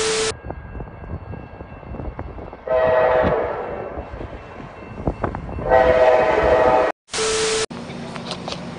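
Train horn blowing two blasts, the second one longer. Each end is framed by a short burst of TV-static glitch noise with a steady beep, at the start and again about seven seconds in.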